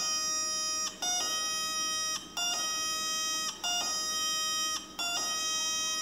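Homemade 555-timer two-tone doorbell buzzing through a small 8-ohm speaker. It plays a short higher note, then a lower note of about a second, and repeats this about five times.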